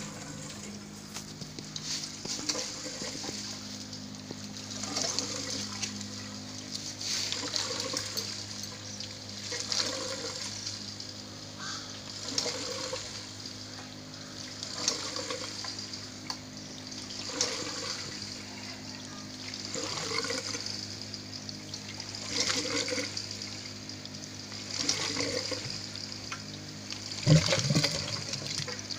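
Aquaponics airlift pump gurgling as water, driven by air from a small compressor, surges up into a plastic-bottle collector about every two and a half seconds, over a steady low hum. A louder bump near the end.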